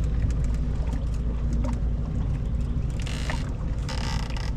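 Steady low rumble of open-air boat ambience on the river, with two short bursts of noise about three and four seconds in.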